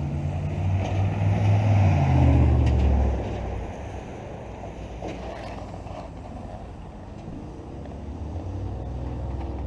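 A car's engine and road noise heard from inside the moving car, a steady low hum that grows louder for a couple of seconds near the start and then settles.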